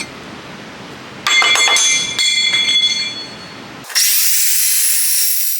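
Steel stock clanking and ringing twice as it is handled on the saw, then, about four seconds in, the Evolution metal-cutting chop saw's 14-inch blade bites into the steel with a loud, bright, high-pitched cutting noise.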